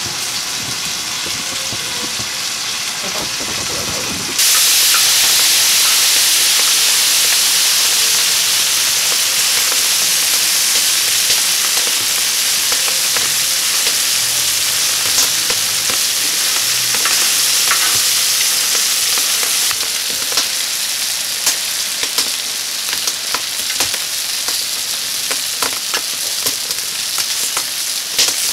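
Pork chops and vegetables sizzling in a steel plough-disc pan over a wood fire, with a utensil scraping and clicking against the pan as the food is turned and stirred. The sizzle is quieter at first and jumps much louder about four seconds in.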